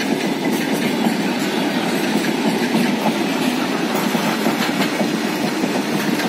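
Freight train of flat wagons rolling past close by: a steady rumble of steel wheels on the rails, with occasional clicks over the rail joints.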